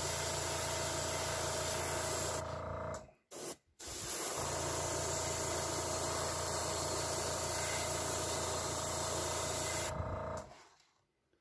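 Gravity-feed airbrush spraying paint onto a fishing lure: a steady hiss with a low hum under it, in two long passes. It stops briefly about three seconds in and trails off near the end.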